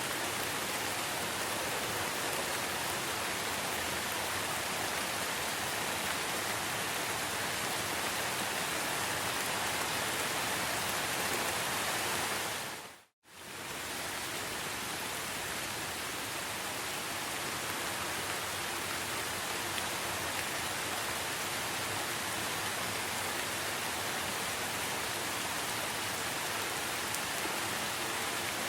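Steady rain falling: an even, dense hiss with no single drops standing out. About halfway through it fades out to silence for a split second, then comes straight back.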